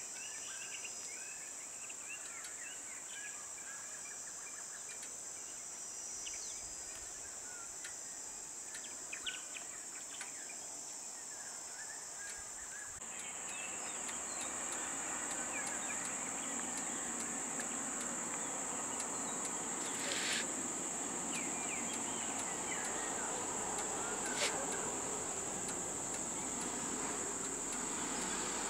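Steady high-pitched drone of insects in forest, with birds chirping in the first half. About halfway through, the drone grows louder and a faint low hum and background noise come in, with two sharp clicks later on.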